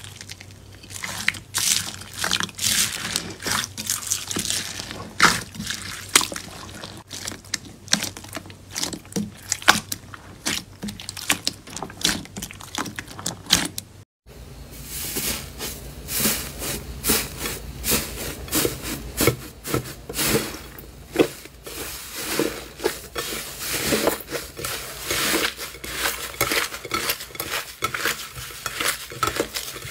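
Hands squishing slime coated in foam beads, a dense run of quick wet crackles and pops. After a short break about halfway, hands crush and knead a thick brown slime, giving denser, heavier squelching crackles.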